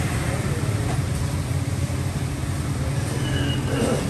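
Steady low mechanical drone of running machinery, even in loudness throughout, with faint voices beneath it.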